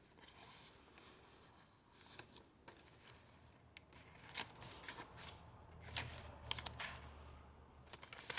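Paper pages of a thick handmade junk journal being turned and handled, with intermittent crisp rustles and paper flicks.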